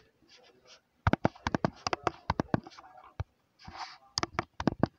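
Fingers tapping quickly and irregularly while typing on a phone's touchscreen keyboard, in two runs of sharp clicks, with a short hiss between them.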